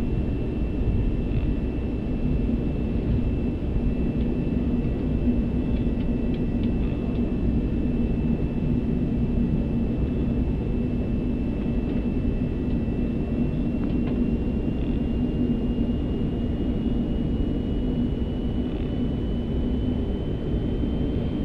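Airbus A380 taxiing with its engines running: a steady low rumble with a thin high engine whine that rises slightly in pitch over the second half.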